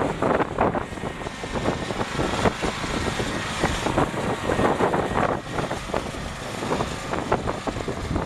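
Husqvarna YTH21K46 riding lawn tractor's engine running, with irregular sharp knocks and rattles over a steady low rumble.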